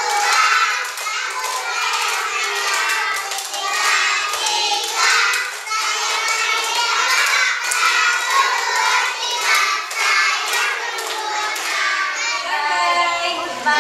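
A class of young children singing a song together in unison, clapping their hands along with it.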